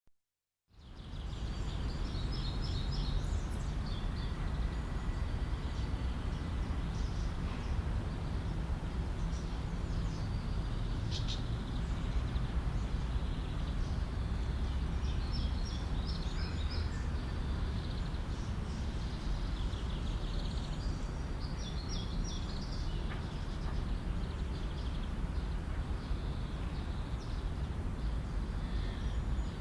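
Urban park ambience: a steady low city rumble under small birds chirping in short flurries every few seconds. It fades in over the first second.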